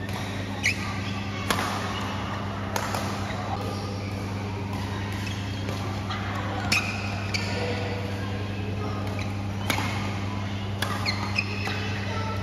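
Badminton play in a hall: sharp, echoing racket-on-shuttlecock hits at uneven intervals, several seconds apart, with a few brief squeaks of court shoes. A steady low hum runs underneath.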